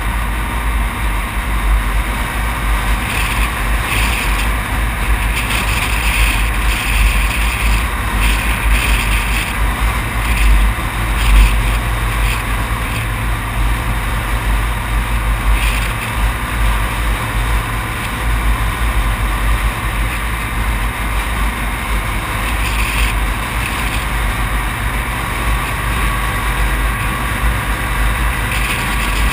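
Wind buffeting the microphone of a camera mounted outside a vehicle moving along a highway, mixed with tyre and road noise: a steady rushing rumble with no distinct engine note.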